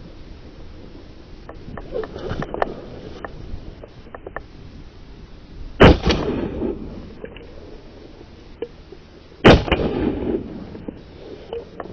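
Two shotgun shots about four seconds apart, each followed by a rolling echo that dies away over about a second. Softer clicks and rustles come in the first few seconds.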